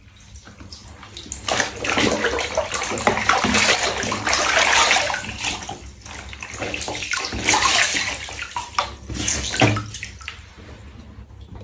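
Water spraying and splashing in a bath as a pet is rinsed. It starts about a second in, breaks off briefly midway, and stops near the end.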